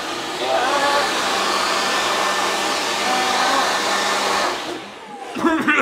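Handheld electric hair dryer running steadily, blowing its rush of air into a man's open mouth, with his strained voice faintly heard through it. The dryer cuts off about four and a half seconds in, and a voice starts up near the end.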